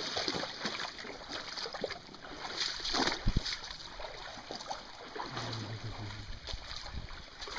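Footsteps wading up a shallow, rocky creek: water sloshing and stones knocking underfoot, with a louder step about three seconds in.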